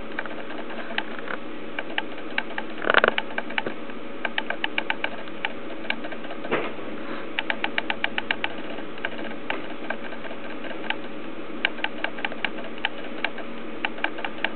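Camera auto-focus motor clicking in quick runs of several clicks a second, over a steady hiss. There is a louder burst about three seconds in.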